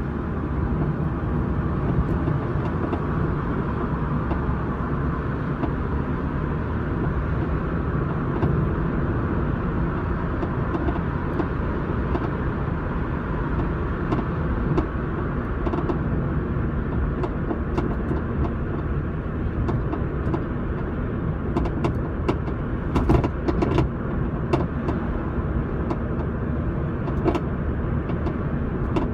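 Mini Cooper S driving, a steady engine and road rumble, with scattered short knocks coming in from about halfway on and bunching up a few seconds before the end. The knocking comes from the back right, where aftermarket Megan Racing coilovers are fitted and have been checked tight.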